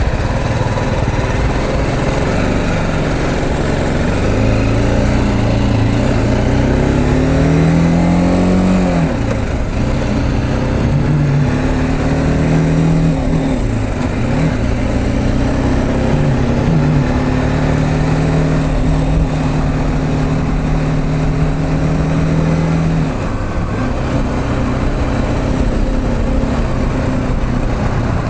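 BMW G310GS motorcycle's 313 cc single-cylinder engine riding in traffic, heard from the bike, over a steady rush of wind and road noise. The engine note climbs through the gears, falls sharply about nine seconds in and again around fourteen seconds as the bike slows for a turn, then holds steady at cruising speed before easing off near the end.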